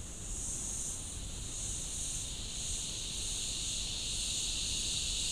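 Insects droning in a high-pitched chorus, one layer pulsing in slow waves while a second, lower drone swells in from about halfway through.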